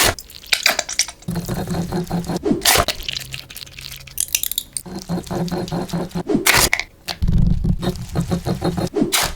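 Food preparation sounds: scattered clinks, knocks and scrapes of kitchen utensils and dishes, with liquid sounds.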